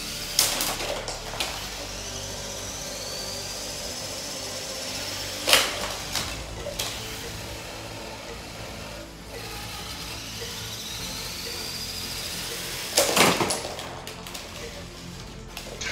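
Lego battle robots fighting: small electric motors whine upward in pitch twice, and the plastic robots crash together several times in sharp clattering hits. The loudest hits come about five and a half and thirteen seconds in.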